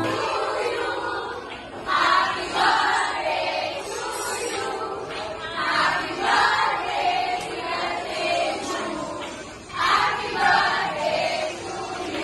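A crowd of voices singing together in short phrases that swell and fade, with brief lulls between them.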